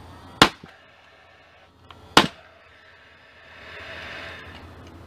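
Paslode 16-gauge angled finish nailer firing twice, about a second and three-quarters apart, driving nails into pine boards. About a second after the second shot a soft hiss swells and fades.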